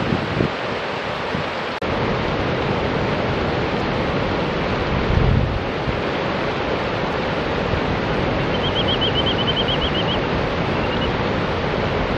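River water rushing over rocks, a steady hiss, with some wind buffeting the microphone about five seconds in. A bit past the middle a grey-tailed tattler gives a quick run of about a dozen high, sharp notes, then two fainter notes.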